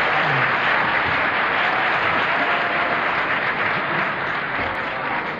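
Live concert audience applauding, the applause slowly dying down.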